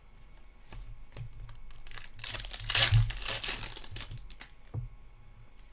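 A trading card pack's shiny foil wrapper being torn open and crinkled by hand. The crinkling is loudest for about a second and a half in the middle, with light clicks from the cards being handled around it.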